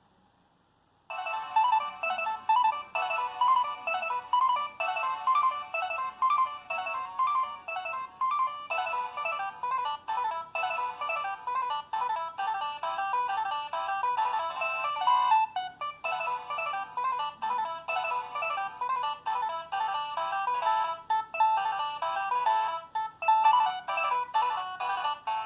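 A preloaded ringtone playing on a Nokia 6225 mobile phone: a busy melodic tune of quick notes with no bass, starting about a second in after the previous tone has faded out.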